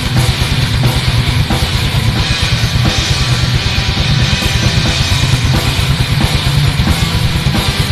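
Black metal recording: a rapid, steady kick drum under a dense wall of distorted guitars.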